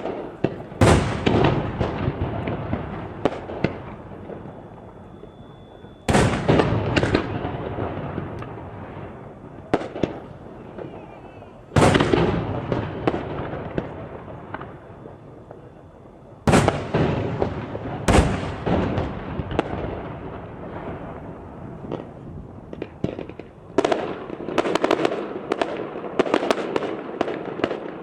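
Aerial firework shells bursting: a loud boom every few seconds, each followed by a long rumbling echo that fades away. Near the end comes a rapid volley of many bangs and crackles.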